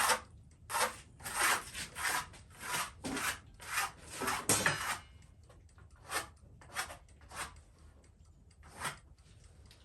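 Repeated short scraping strokes of a hand tool on a cedar board, about two to three a second for the first half, then slower and spaced out.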